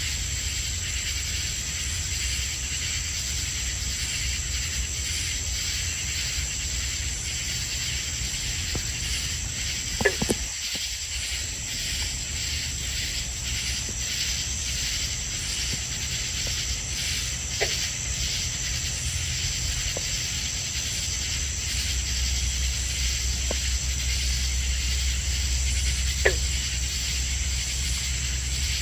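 Night chorus of crickets and katydids around a summer pond: a steady high trill with a pulsing, rasping layer beneath it. A handful of brief calls slide sharply down in pitch, the loudest about ten seconds in and near the end.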